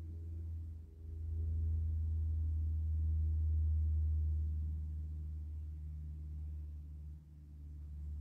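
Low, sustained tones with several pitches that shift slowly, swelling about a second in and dipping briefly near the end.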